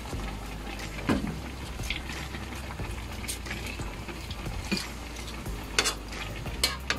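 Metal spatula stirring and tossing cabbage and vegetables in an aluminium wok, with several sharp clinks of the spatula against the pan over the steady bubbling of the boiling broth.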